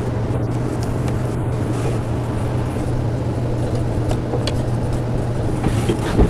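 Steady low hum and hiss of background noise, with a few faint clicks as small screws are turned in by hand with a screwdriver.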